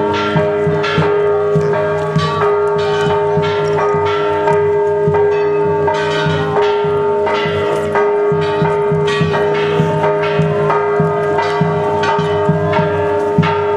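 Church bells ringing a rapid, uneven peal, stroke after stroke, with the bells' tone sounding on between strikes.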